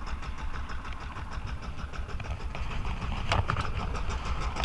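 Boat engine running steadily at low trolling speed, with one sharp knock a little over three seconds in.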